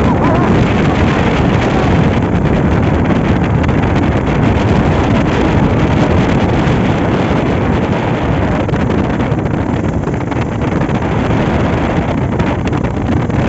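Steady rushing wind noise on the microphone of a moving vehicle, with a motor running underneath.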